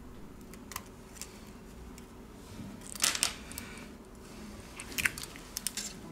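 Small sharp clicks and scrapes of a plastic spudger prying the battery flex connector off its socket on a Xiaomi Redmi 7A motherboard, with a short cluster of clicks about three seconds in and a few more near the end.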